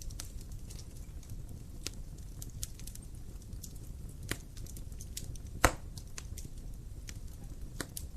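Wood fire crackling in a fireplace: a low steady rumble of flame with scattered sharp pops and snaps, the loudest a single pop a little before six seconds in.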